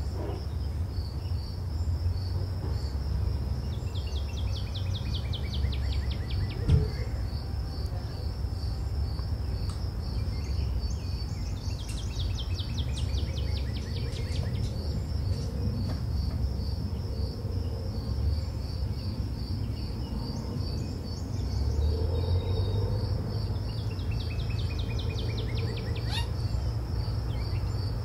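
Crickets chirping in a steady pulse, with a descending bird trill three times, over a low rumble.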